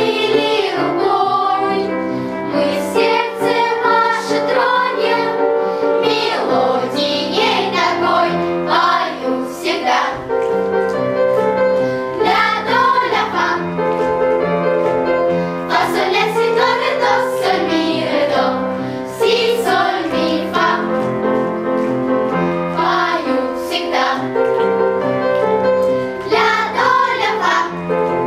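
Music: a song sung by voices over instrumental accompaniment.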